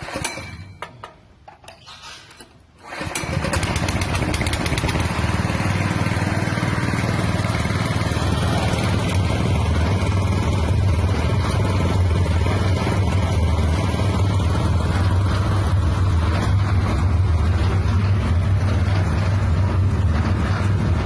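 Livestock feed mixer's small engine starting about three seconds in after a few short sounds, then running steadily with a strong low hum as the mixer turns.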